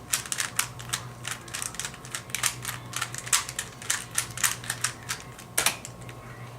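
Rubik's Cube layers being turned quickly by hand, plastic clicking and clacking several times a second, with one louder knock near the end. A steady low hum runs underneath.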